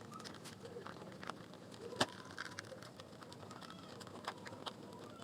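Faint handling clicks and rustles of a replacement earpad being pressed and fitted onto a headphone's plastic ear cup, with one sharper click about two seconds in.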